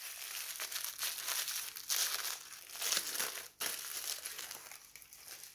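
Toy surprise wrapping crinkling and tearing as it is unwrapped by hand, in irregular rustling bursts, loudest about two and three seconds in.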